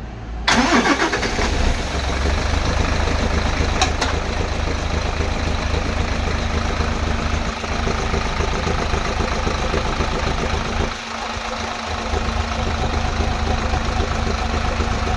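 Isuzu 6HK1 inline-six diesel engine catching about half a second in, then running steadily, with a brief dip in level about eleven seconds in.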